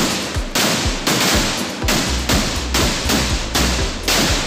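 Fireworks going off in quick succession: a rapid series of bangs and crackling bursts with thuds beneath them.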